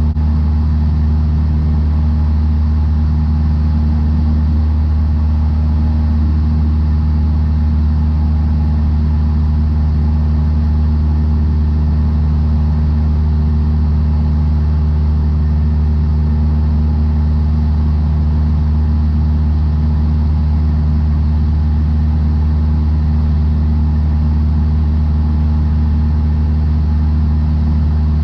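Cessna 152's four-cylinder Lycoming engine and propeller droning steadily in level flight, a low even hum with no change in power.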